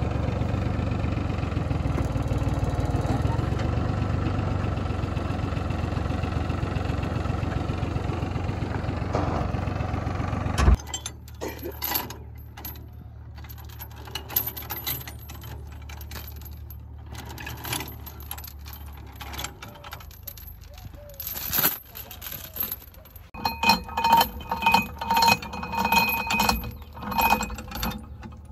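Tractor engine running steadily and loud, cut off suddenly about ten seconds in. After that, a faint low hum with scattered clinks and rattles, and voices near the end.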